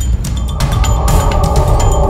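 Background music with a steady beat. About half a second in, a shimmering sci-fi transporter sound effect joins it.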